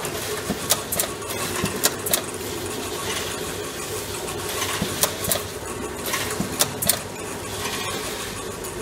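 A machine running steadily with a constant hum, broken by irregular sharp clicks and clatters, a few each second.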